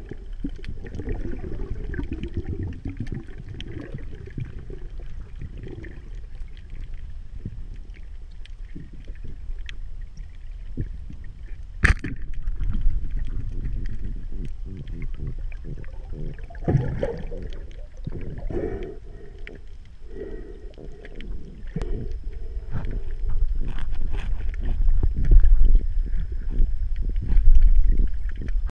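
Underwater water noise and bubbling heard through a diving camera's housing, with a single sharp click about 12 seconds in as a speargun fires. Louder bursts of churning water follow and grow loudest near the end as the speared mulloway (jewfish) struggles on the shaft.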